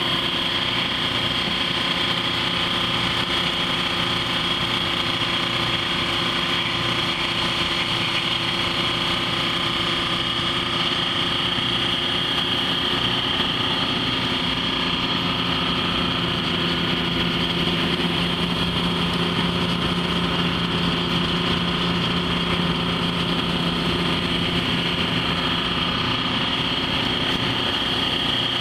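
An engine running steadily, with a constant high whine over a lower hum.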